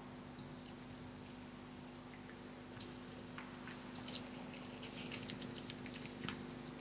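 Red fox cub eating from a food bowl: irregular sharp crunches of chewing begin about three seconds in, over a steady low hum.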